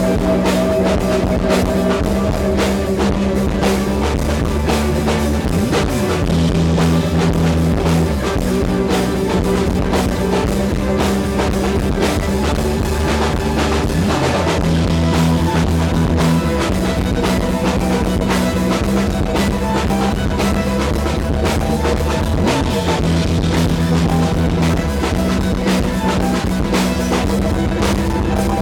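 Rock band playing live: drum kit, guitar and bass, with held chords that change about every two seconds over steady drumming.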